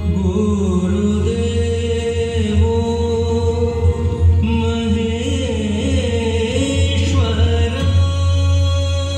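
Male vocalist singing a Hindustani classical melody with gliding, ornamented pitch, over a steady held drone accompaniment.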